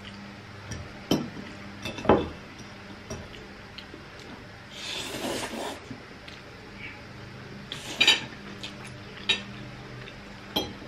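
Metal forks clinking and scraping on ceramic plates while spaghetti is twirled, with a few sharp clinks. About five seconds in comes a brief hissing slurp as spaghetti is sucked up.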